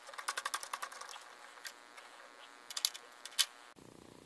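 Two bursts of rapid small metallic clicks and rattles, the first in the opening second and a shorter one near the end, as a twist drill bit is fitted into a drill press's keyed chuck and the chuck is closed on it.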